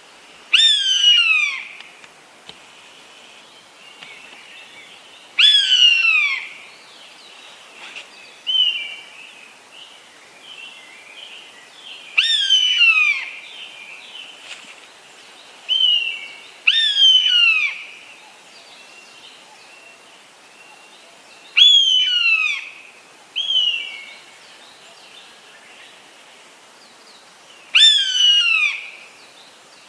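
Eastern buzzard calling: six loud, drawn-out mewing calls a few seconds apart, each starting sharply and falling in pitch, with shorter, flatter, fainter notes in between.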